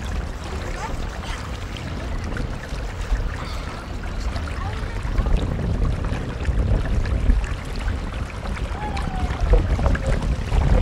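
Rushing floodwater, with a fluctuating deep rumble of wind buffeting the microphone.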